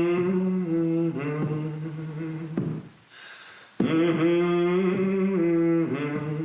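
Song intro music: sustained, drone-like held tones over a steady low note, with no lyrics. It drops out briefly about three seconds in, then comes back at full level.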